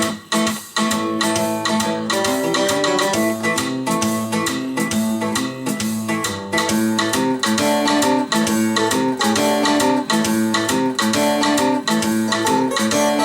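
Blues-rock music with guitars playing through KEF Q Concerta Meta stand-mount loudspeakers driven by a Cyrus One Cast amplifier, steady and continuous.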